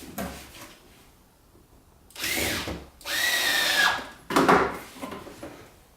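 Cordless power screwdriver driving a screw: two short runs of the motor, the second about a second long, each whining up and then dropping off. A couple of sharp knocks follow.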